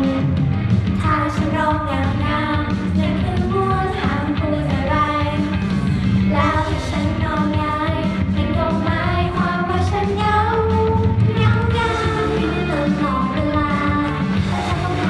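Upbeat pop song with female group vocals over a steady beat, played loud through a stage sound system.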